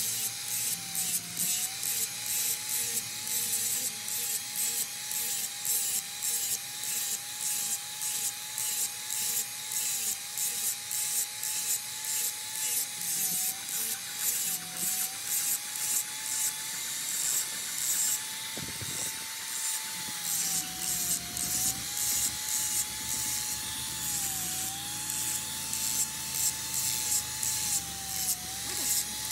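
Rhythmic rasping strokes of a hand tool scraping back and forth, about two to three strokes a second, keeping an even pace throughout.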